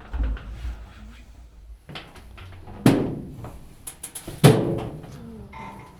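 Two loud bangs about a second and a half apart, each with a short ringing decay, from inside a heritage locomotive's cab or engine compartment, with a low handling rumble before them.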